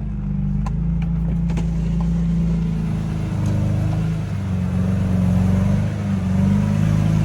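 S54 3.2-litre straight-six in a BMW E30 M3 running steadily at low speed, its note swelling a little now and then, with a few light clicks in the first couple of seconds.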